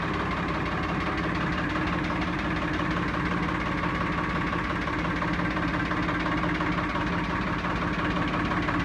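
Farmtrac 60 tractor's diesel engine idling steadily.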